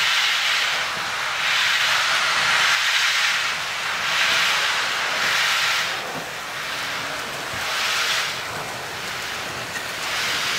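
BR Standard Class 7 steam locomotive 70013 Oliver Cromwell moving off slowly with its cylinder drain cocks open, blowing steam in long hisses about every two seconds; the later hisses are shorter.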